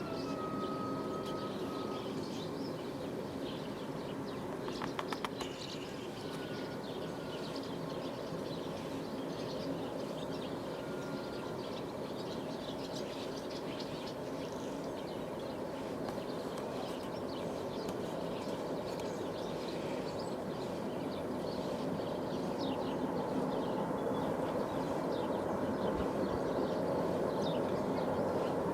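Freight train rumbling steadily, growing a little louder near the end, with birds chirping throughout.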